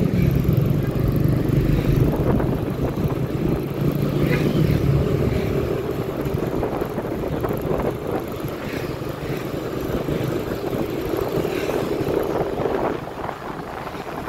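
Motorbike engine running at road speed under wind and road noise, with other traffic around; the sound gets a little quieter near the end.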